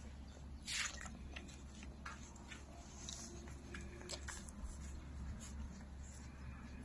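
Puppies suckling at their mother's teats: faint, irregular wet squishing and sucking with small clicks, and one louder short burst about a second in.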